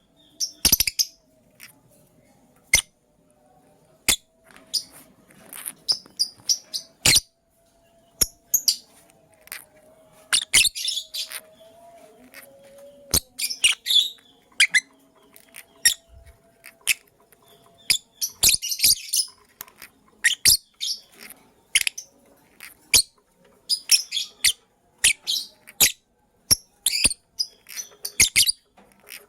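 Lovebirds chirping in short, irregular bursts of high, shrill calls, mixed with sharp clicks.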